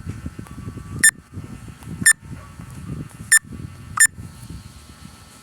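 Four short, high-pitched squeaks roughly a second apart, over an uneven low rumble of background noise.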